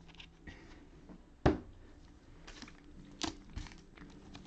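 Trading cards and packs being handled on a table, with a sharp tap about a second and a half in and a lighter one a little past three seconds, over faint rustling.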